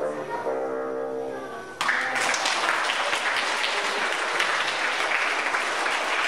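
A bassoon holds a final note that fades out, then a little under two seconds in an audience suddenly breaks into steady applause.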